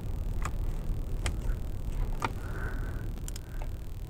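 Scattered sharp clicks and taps of a Phillips screwdriver and screws working against the plastic steering column surround, with a short squeak about halfway through as a screw starts into its hole, over a low steady rumble.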